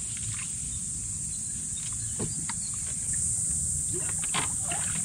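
Insects chirring steadily as a high-pitched background drone that grows louder about three seconds in, over a low rumble with a few faint clicks.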